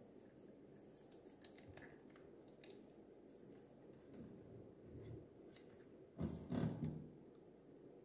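Hands handling a small plastic mini fan with a gooseneck, giving light clicks and taps, with a louder knock and rubbing about six seconds in.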